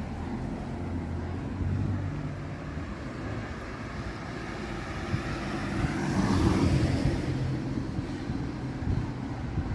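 Street traffic: a low engine rumble, then a vehicle passing close by, its noise swelling and fading about six to seven seconds in.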